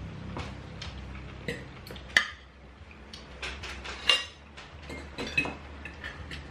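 Scattered clinks and taps of plates and eating utensils during a meal, with two sharper knocks about two and four seconds in, over a steady low hum.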